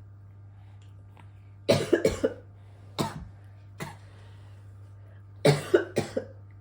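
Young child coughing in short fits: a quick run of two or three coughs, then two single coughs, then another run of three or four.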